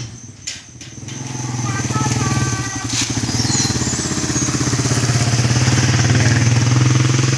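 A motor vehicle engine running with a steady low hum, dropping away briefly near the start and then growing louder over the next few seconds. A steady high insect trill goes on behind it.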